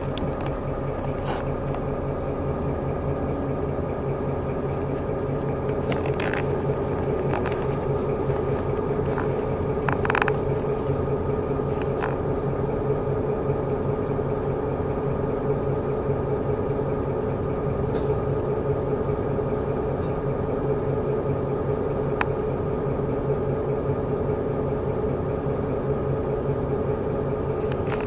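Inside a city bus under way: the engine and drivetrain hum steadily with a constant whine, and the cabin fittings give occasional clicks and rattles.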